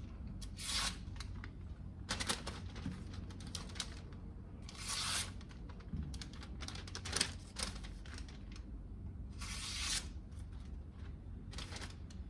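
Freshly sharpened Japanese chef's knife slicing through paper in a cut test: five or so short hissing slicing strokes, a couple of seconds apart.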